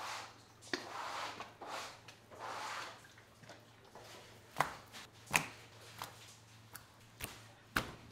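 A knife works in repeated scraping strokes, about one a second, then strikes a cutting board several times in sharp, separate chops.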